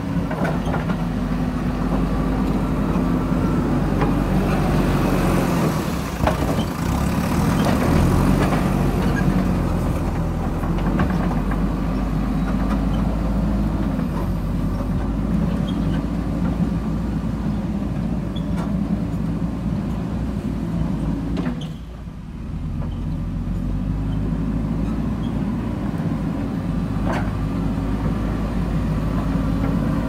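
JCB backhoe loader's diesel engine running as the machine drives slowly over a dirt road, its note shifting up and down, with a brief drop in level about two-thirds of the way through and a few faint knocks.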